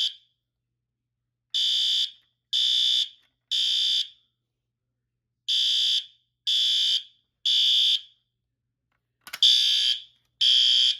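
Fire alarm horn sounding, set off from a pull station, in the temporal-three evacuation pattern: three half-second blasts about a second apart, a pause of about a second and a half, then the next three. Pretty loud.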